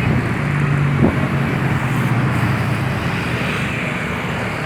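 Road traffic with a large vehicle's engine running steadily, a low even hum. There is a short knock about a second in, and no horn sounds.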